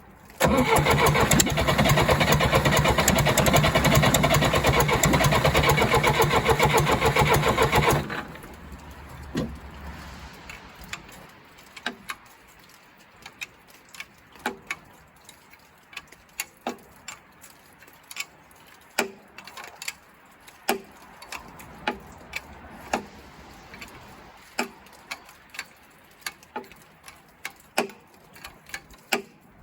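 1963 Case 310F bulldozer's diesel engine cranked over by its starter for about eight seconds without firing, turned over to bleed air and push fuel through to the injectors. The cranking then stops, and light, sharp clicks follow about once a second.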